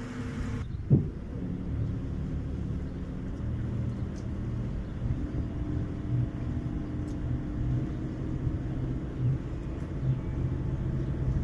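A boat's engine running steadily at low speed with a low rumble while manoeuvring into a berth, with a single sharp knock about a second in.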